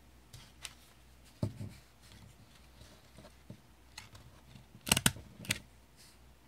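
Bates 88P hand-grip stapler squeezed shut on a strip of paper, a sharp clack a little before five seconds in as it drives a staple, followed by a lighter click about half a second later. A few lighter clicks and a tap of handling come earlier.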